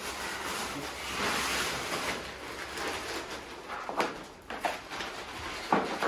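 Plastic sheeting and bags crinkling and rustling as they are handled and walked on, with a few sharp clicks and knocks of tools near the end.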